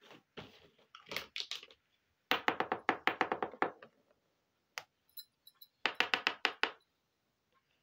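Small plastic toy kitchen pieces clacking as they are handled and set down: two runs of rapid clicks, about seven a second, with a few single taps between them.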